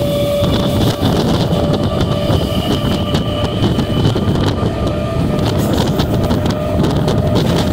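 Electric multiple-unit suburban train running along the track: a steady rumble with a few faint, steady high tones over it.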